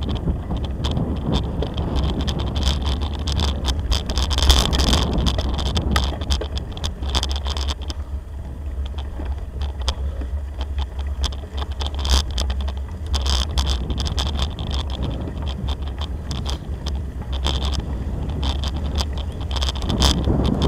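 Bicycle rolling along a rough sandy dirt track: steady tyre and rolling rumble with frequent sharp rattles and knocks as the bike jolts over bumps, heard through a bike-mounted camera.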